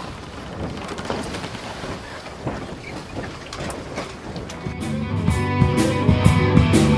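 A rushing, noisy wash, then a rock band comes in about four and a half seconds in: drum kit on a steady beat, with bass and guitar.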